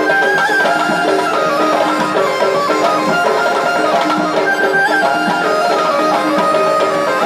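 Tunisian mezoued folk music: the mezoued bagpipe playing a continuous melody of held, stepping notes.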